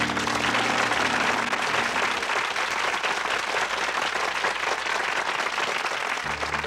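Audience applauding, a dense, even clapping that starts as the song's last chord dies away. Near the end, music starts up again under it.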